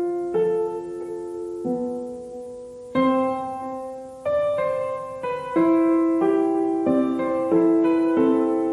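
Background music: slow solo piano playing a gentle melody over held chords, a new note or chord struck every half second to a second, each one fading slowly.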